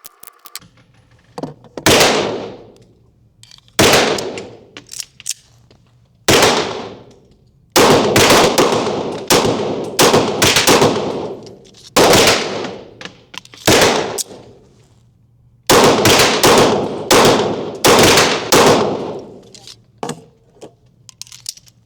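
A Sarsılmaz semi-automatic pistol firing single shots, a dozen or more spaced roughly one to two seconds apart, some in quick pairs. Each shot is followed by a long echo.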